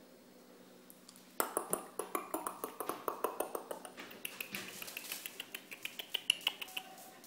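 Rapid clicking and tapping of Shetland sheepdog puppies' claws on a hard tiled floor as they scamper about. It starts about a second and a half in, with several sharp clicks a second.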